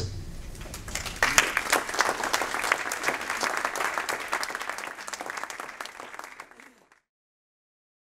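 Audience applauding after the end of a lecture: dense clapping that starts about a second in, fades and is cut off abruptly near the end.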